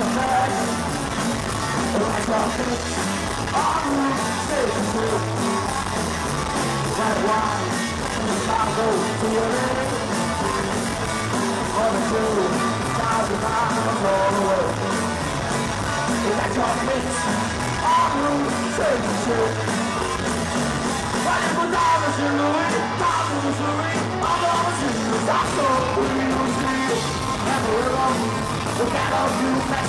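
Rock and roll band playing live: electric guitar, bass and drums with male lead vocals, recorded from within the audience.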